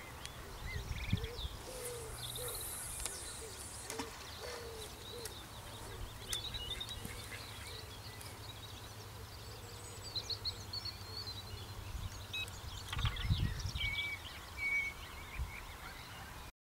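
Small birds chirping and singing over a low steady rumble, with a hiss high up about two seconds in as a carp rod is cast and line runs off the reel.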